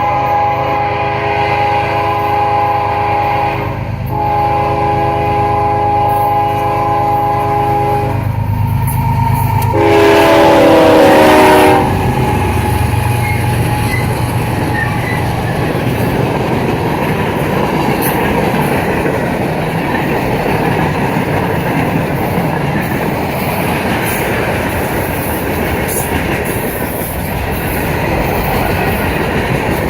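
Freight locomotive air horn sounding long, steady multi-note blasts with a short break about four seconds in, then a louder final blast about ten seconds in that slides down in pitch. After it, the rumble and clatter of the manifest train's freight cars rolling by.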